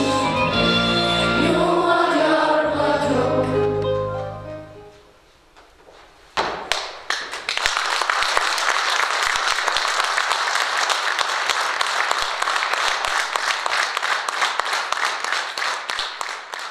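A choir singing with accompaniment fades out. After a short pause and a single thump, an audience breaks into steady applause.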